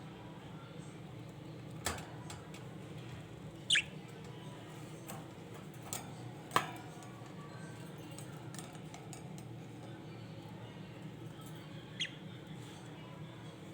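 Budgerigars giving a few short, sharp chirps that fall in pitch, one about four seconds in and another near the end, with a couple of sharp clicks between them over a steady low hum.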